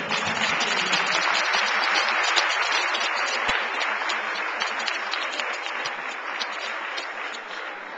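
Audience applauding, a dense patter of many hands clapping that is loudest early and gradually tapers off.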